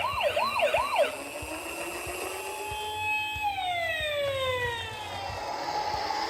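Toy ambulance's electronic siren: a fast up-and-down yelp for about the first second, then a steady tone that slides down in pitch and fades.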